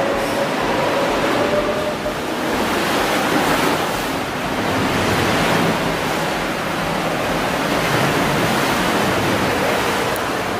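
Sea waves surging and churning inside a sea cave, a steady rushing noise that swells and eases.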